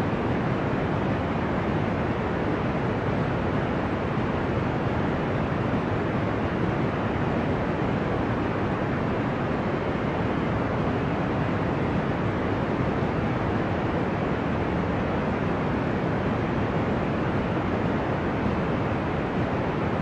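Steady, deep, ocean-like white noise: an even hiss with no waves rising and falling, muffled in the highs.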